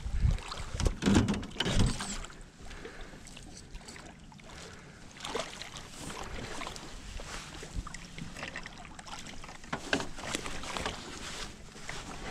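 Thumps, knocks and splashing as a channel catfish is played at the surface and scooped into a landing net beside a small boat, with a few heavy thumps in the first two seconds.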